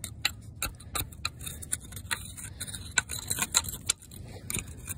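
A steel rod jabbing and scraping inside a Wisconsin V4 engine's cylinder bore, chipping out a piston corroded to crumbling grey debris with rust and sand. It makes a rapid, irregular run of metallic clicks and gritty scrapes.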